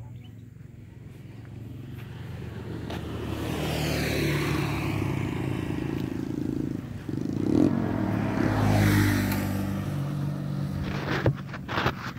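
Motor vehicles passing on the road, with engine hum throughout. Two passes swell and fade, loudest about four and nine seconds in. A few sharp knocks come near the end.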